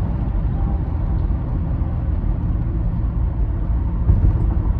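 Steady low rumble with no breaks, heaviest in the bass.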